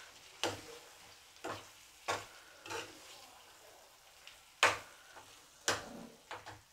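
A spoon stirring paneer cubes into thick masala gravy in a metal pan, with irregular scrapes and knocks against the pan about once a second. Under them is the faint sizzle of the masala frying in the ghee it has released.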